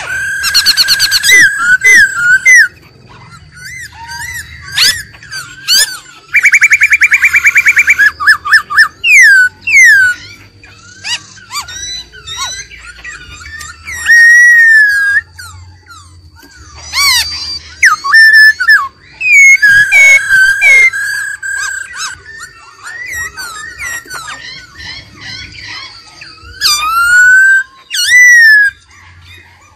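Black-throated laughingthrush singing loud, varied whistled phrases with up-and-down slides. About six and a half seconds in, it breaks into a rapid rattling trill lasting over a second.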